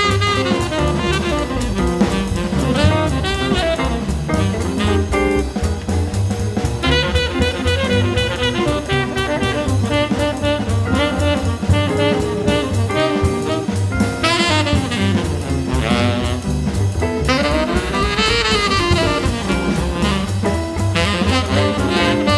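Small swing jazz combo playing: tenor saxophone and trumpet over piano, double bass and drum kit.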